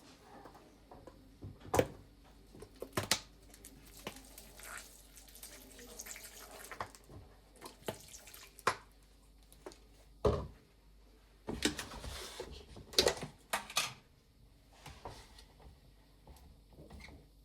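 Household sink sounds: a tap running in short spells, with scattered knocks and clicks of things being handled.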